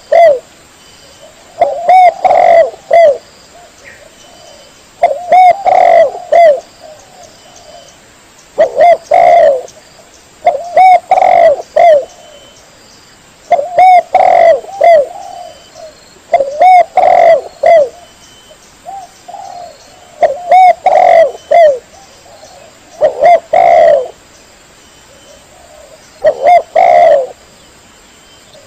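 Spotted dove (tekukur) cooing: a loud phrase of three or four low coos, repeated about every three seconds.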